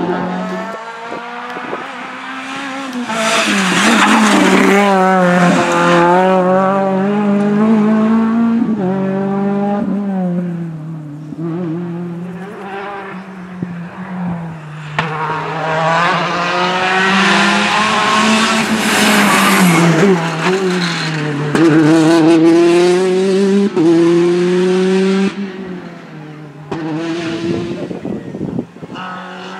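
Rally car engines revving hard as the cars drive the stage, the pitch climbing and dropping again and again through gear changes and lifts. The loudest passes come in two stretches.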